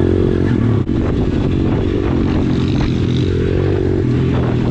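Pit bike engine running steadily under way on a dirt trail, heard from the rider's seat, with a short break about a second in.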